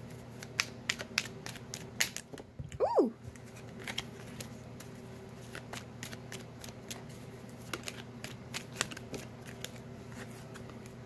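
Tarot deck shuffled by hand: irregular soft clicks and flicks of cards against each other, busiest in the first few seconds, over a steady low hum. About three seconds in, a short sound slides up and back down in pitch.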